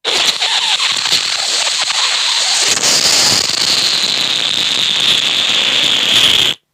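A steady, loud hissing and crackling noise, brightest in a high band, that stops suddenly near the end.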